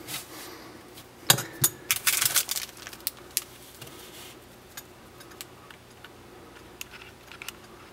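Handling noise from a metal pin badge and its clear plastic packaging: a few light clicks and knocks, a brief crinkle of the plastic bag about two seconds in, then faint scattered ticks.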